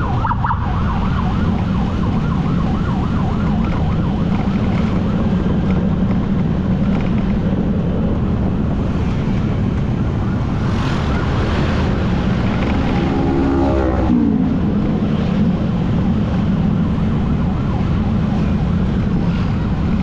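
Emergency siren yelping in a fast warble for the first several seconds, then sweeping downward in pitch a little past the middle, over a steady low drone of motorcycle engine and road wind.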